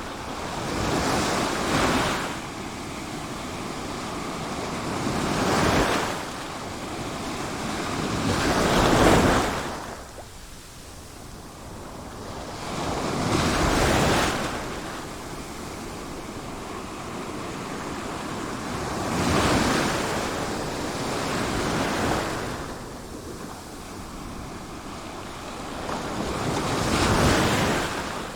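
Sea waves breaking, six in about half a minute, each swelling up to a rush and then falling away.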